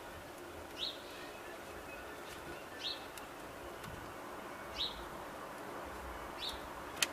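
A bird calling: four short, rising high chirps about two seconds apart, over a faint steady background noise.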